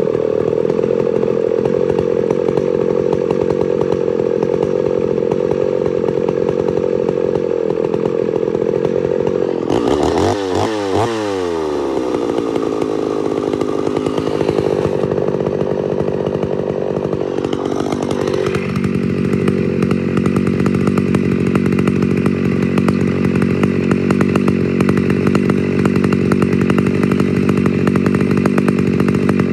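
Homelite Super XL-925 82cc two-stroke chainsaw, governor blocked off, running at idle. About ten seconds in it is revved in a few quick throttle blips, then settles into a rough, popping idle that sounds like popcorn popping, with the low-speed mixture and idle both turned up.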